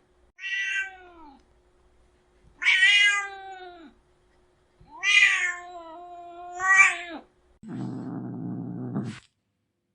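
Domestic cat meowing four times in drawn-out calls that fall in pitch at the end, followed near the end by a low growl lasting about a second and a half.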